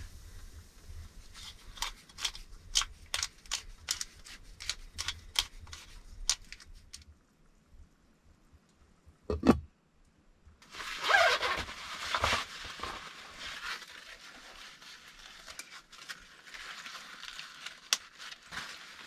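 A run of sharp clicks and crackles, then one loud knock about nine seconds in, then fabric rustling as black clothing is handled and hung on a wall hook.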